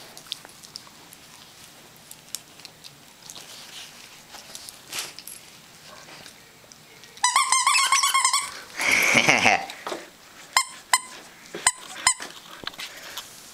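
A squeaky toy being chomped by a Siberian husky puppy. About seven seconds in comes a rapid run of squeaks, then one longer hissing squeak, followed by a few sharp clicks.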